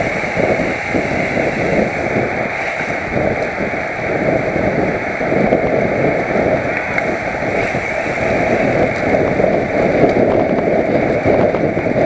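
Steady wind rushing over a helmet-mounted camera's microphone while riding a road bike.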